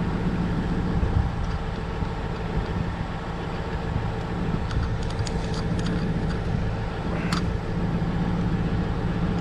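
An engine running steadily, a low even hum with no change in speed, with a few light clicks from hand work on the belt lacing between about five and seven and a half seconds in.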